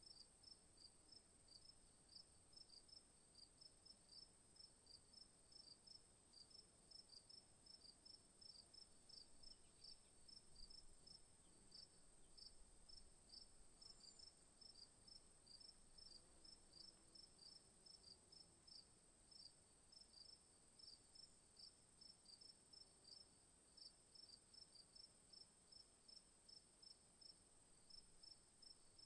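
Faint crickets at night: one steady, high, unbroken trill, with another cricket chirping lower in a quick regular rhythm, two or three chirps a second.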